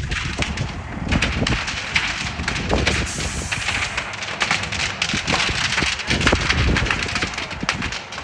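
A large sawmill fire burning, with dense crackling and popping, many sharp snaps in quick succession.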